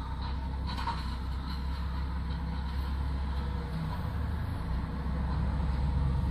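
Engine idling with a steady low rumble, heard from inside a truck's cab, growing a little louder about five seconds in.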